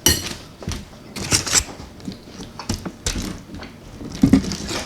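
Close-miked eating: chewing and biting food, with a series of short, sharp clicks and crackles.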